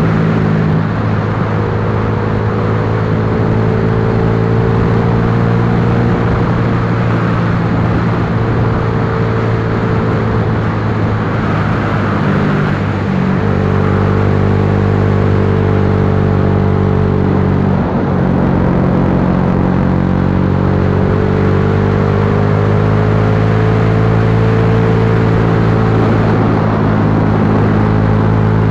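Yamaha Lagenda 115Fi's single-cylinder four-stroke engine running under way. The engine note rises and falls gently as the throttle is eased and opened through the bends, dipping briefly about halfway through and again a few seconds later.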